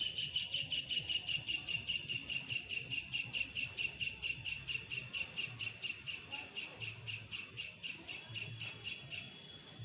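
A high, shrill chirp repeated evenly about five times a second, sinking slightly in pitch over the run and stopping near the end, as a steady high tone takes over.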